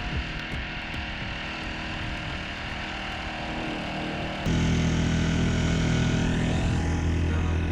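A small grass-trimmer engine driving the propeller of a homemade boat, running steadily. About four and a half seconds in, the sound abruptly gets louder, with a stronger low hum.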